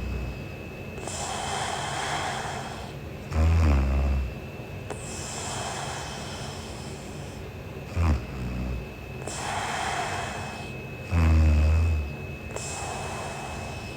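A woman snoring in her sleep: three loud, low, rattling snores on the in-breath, about every three to four seconds, with breathy exhales between them.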